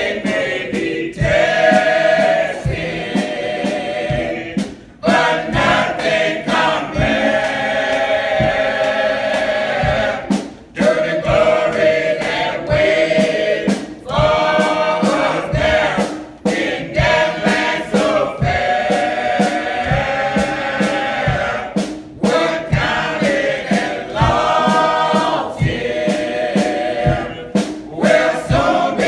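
Mixed senior church choir of men and women singing a gospel song in sustained phrases, with a steady low beat underneath.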